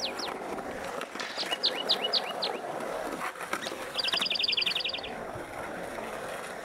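Birds chirping over a steady outdoor hiss. First comes a short run of quick, downward-sweeping chirps, and about four seconds in a rapid trill of about a dozen notes in a second.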